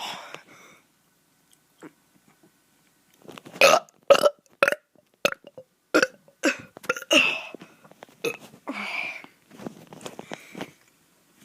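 A kid burping over and over: one burp at the start, then after a short pause about ten short burps in quick succession, with a longer, drawn-out one near the end.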